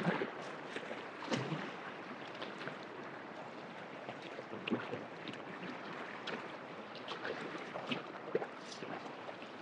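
Fast river water rushing steadily over rocks, with a few faint short ticks.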